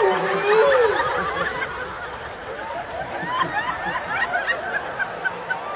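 A woman's held sung note through the PA ends about a second in; then a large audience laughs and chuckles.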